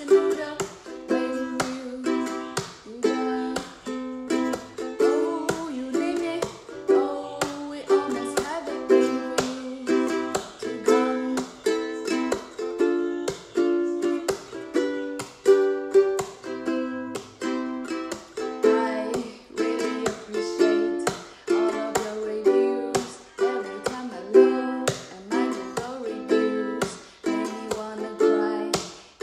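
Ukulele strummed in a steady rhythm, its chords changing as the song goes on.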